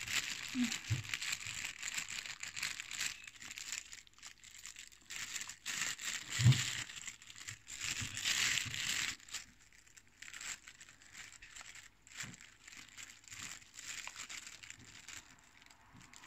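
Clear plastic bag crinkling and rustling as it is handled and pressed into a bag sealer, in irregular bursts, with one dull knock about six and a half seconds in.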